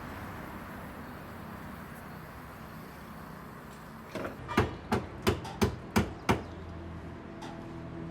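Hammer blows on a car's sheet-metal body panel during dent repair: a lighter tap, then six sharp strikes about three a second, over steady workshop background noise.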